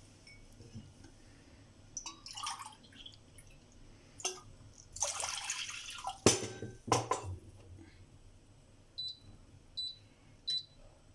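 Water poured into a cooking pot in short pours, with a few sharp knocks of the vessels and some small ringing drips near the end.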